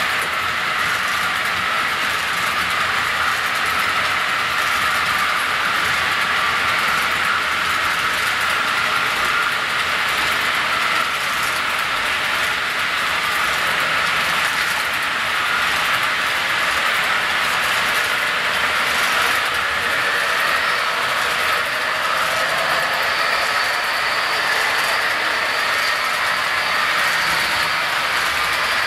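HO scale model double-stack container train rolling past, a steady running noise of wheels on the track with faint regular clicking. A thin high whine joins in about three-quarters of the way through.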